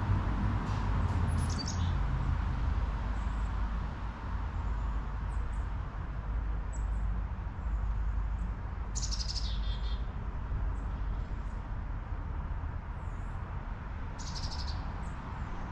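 Wind blowing through trees, a steady rush with a low rumble underneath. A bird chirps briefly about nine seconds in and again near the end.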